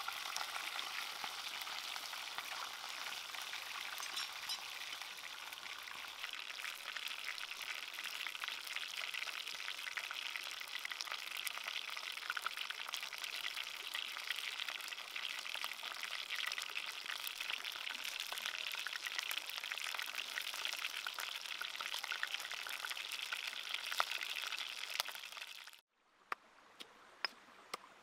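A whole fish frying in a pan: a steady sizzle full of fine crackles. About two seconds before the end the sizzle cuts off, and a few separate knocks follow, a pestle pounding chillies in a stone mortar.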